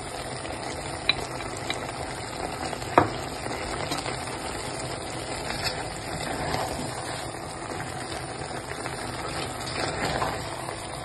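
Green beans and potatoes sizzling in a nonstick pan as they are stirred with tongs to work in tomato paste, with a few sharp clicks of the tongs against the pan, the loudest about three seconds in.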